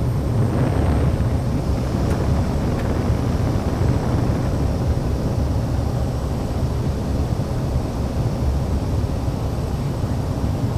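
Cessna Caravan Amphibian's Pratt & Whitney PT6A turboprop engine and propeller heard from inside the cockpit: a steady low drone with faint steady whining tones above it. The engine is held under power on short final to a water landing.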